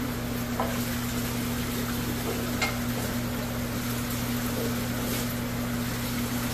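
Aquarium equipment running: a low steady hum from air pumps and filters under a constant fizzing hiss of bubbling water from air stones, with a couple of faint light clicks.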